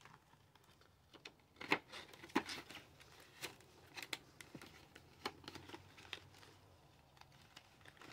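Paper banknotes being handled and counted by hand: a scattered run of short, crisp rustles and flicks, the loudest about two seconds in.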